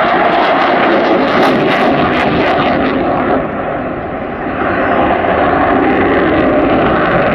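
Eurofighter EF-2000 Typhoon's two EJ200 turbofans, loud and steady, with afterburners lit, dipping briefly about halfway through and then coming back up.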